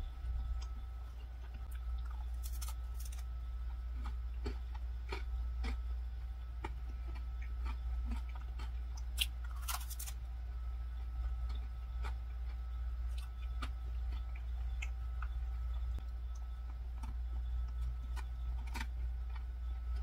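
Close-miked chewing of a macaron, with soft crunches of the crisp shell throughout and a few sharper crisp bites, the loudest about nine to ten seconds in.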